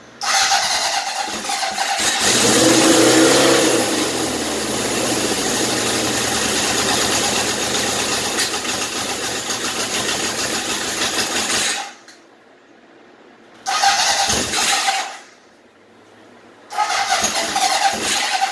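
The electric starter of a 1977 Honda CB750's air-cooled inline-four cranks the engine after ten years of storage. It runs in three goes: one of about twelve seconds that is loudest a couple of seconds in, a short one of about a second and a half, then a third near the end.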